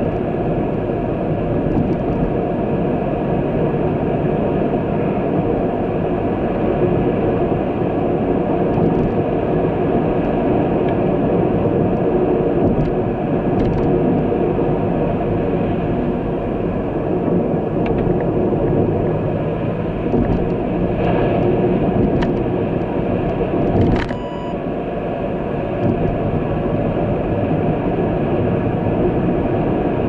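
Steady road rumble of a vehicle driving: engine and tyre noise. A single sharp click comes late on, and the rumble is briefly lower after it.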